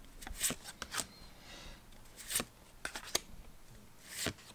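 Pokémon trading cards being flipped through by hand, one card at a time: six or seven short, crisp flicks and slaps of card stock, spaced irregularly.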